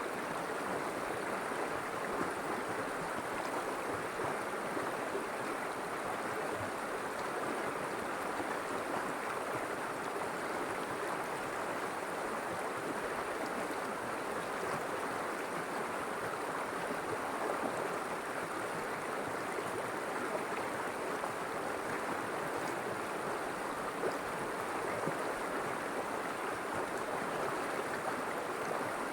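River water flowing steadily, a continuous rushing and burbling.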